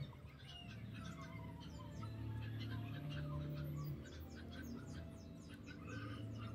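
Small birds chirping busily, many short rising calls overlapping one another, over a low steady tone that shifts in pitch every second or so.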